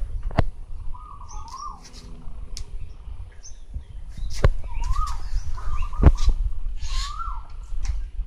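Birds calling: a wavering, warbling whistled call repeated about four times, with short high chirps in between. A few sharp clicks or knocks are heard among them.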